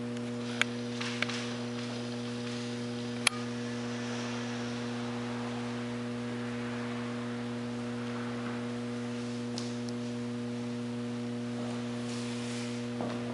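Steady electrical mains hum. Three short, sharp clicks come in the first few seconds, the loudest about three seconds in.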